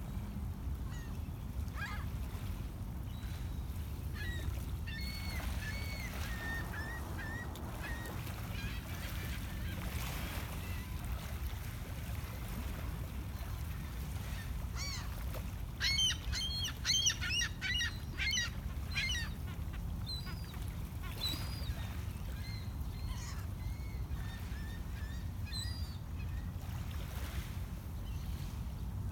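Gulls calling on and off, with a burst of rapid, overlapping calls about halfway through, over a steady low rumble.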